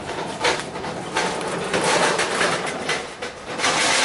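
Char-Broil gas grill being wheeled over rough, leaf-strewn ground: its casters rolling and its metal body and parts rattling in an uneven, continuous clatter.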